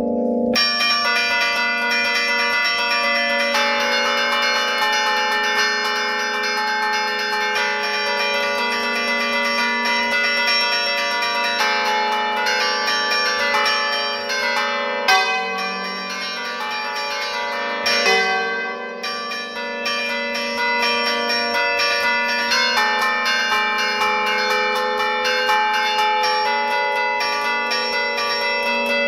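A set of tower church bells played by hand from a wooden lever keyboard in the Bergamasque allegrezza style: a quick, continuous tune of clapper strikes on several tuned bells, each ringing on under the next.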